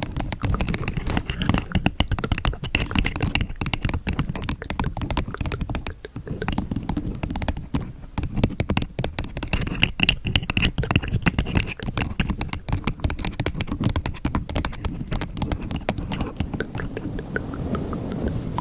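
Close-miked ASMR trigger sounds: rapid, dense crackling, scratching and tapping with a rumble of handling underneath, easing briefly about six seconds in and thinning near the end.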